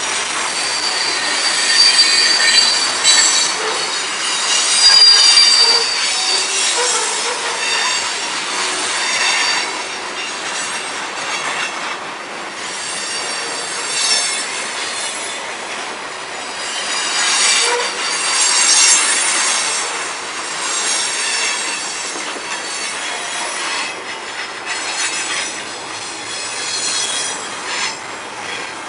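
Freight train cars passing close by, covered hoppers and double-stack container cars: steel wheels rolling on the rails with high-pitched flange squeal that comes and goes.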